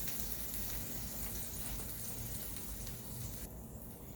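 Hot food sizzling in its pan, a steady hiss that cuts off suddenly about three and a half seconds in.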